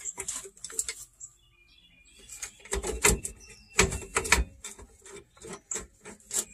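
Irregular metallic clicks and knocks of hand tools on a van's rear brake as it is bolted back together. About a second in there is a short lull where a bird chirps faintly.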